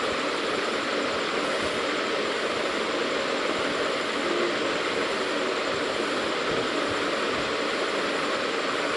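Steady, unchanging background rushing noise with no distinct events.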